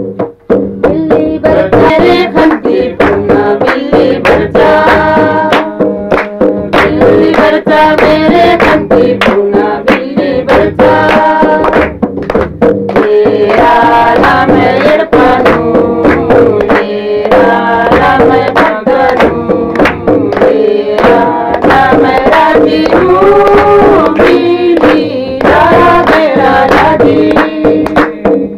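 A group singing a song together, accompanied by a two-headed barrel drum played with the hands in a steady beat.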